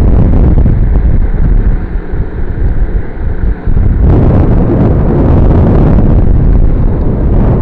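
Loud wind buffeting on the microphone from riding along a paved path, a dense low rumble that eases briefly around three seconds in.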